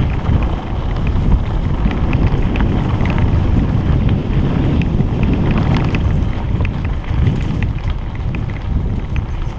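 Wind buffeting a helmet-mounted camera's microphone as a hardtail mountain bike rides fast down dirt singletrack, with many small clicks and rattles from the bike over the rough trail.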